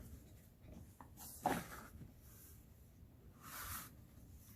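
Quiet handling of a paper rule book, its pages being turned, with a short sniff about a second and a half in and a soft rustle near the end.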